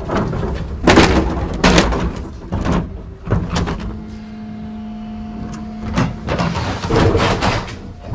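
Plastic two-wheeled wheelie bin rattling and thumping as it is rolled over pavement to a garbage truck's rear lifter. In a lull about midway, a steady hum comes through from the electric garbage truck's hydraulic pump, which is running with the power take-off engaged.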